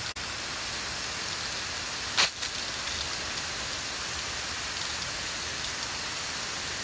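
Garden hose spraying water over a tornado probe, a steady rain-like hiss, to test the probe against rain. It cuts out for an instant just after the start, with a short louder spurt about two seconds in.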